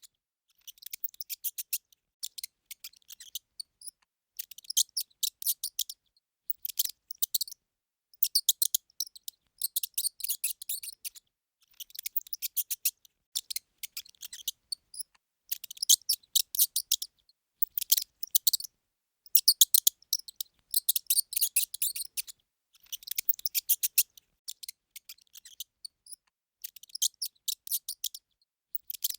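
Mouse squeaking: high-pitched squeaks in quick trains of many pulses, coming in bouts of a second or two with short pauses between them.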